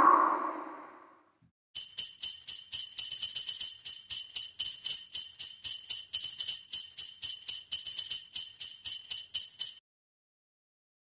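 Jingle bells (sleigh bells) shaken in a steady, quick rhythm for about eight seconds, then cutting off suddenly. At the start, the tail of the opening logo sound fades out.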